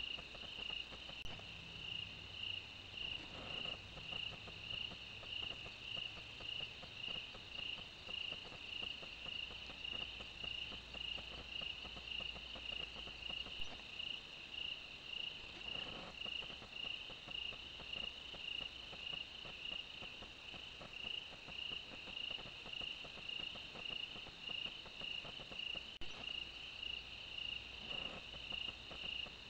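Night chorus of crickets: a steady, high-pitched chirping that pulses evenly and without a break.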